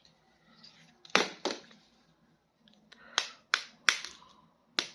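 Sharp plastic clicks and crackles from handling toy packaging and figures, about six of them, several in quick pairs.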